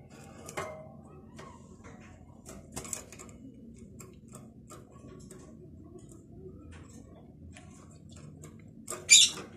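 European goldfinch moving about its wire cage: scattered light ticks and clicks of the bird against the wire bars and plastic perches, with a short, louder clatter near the end.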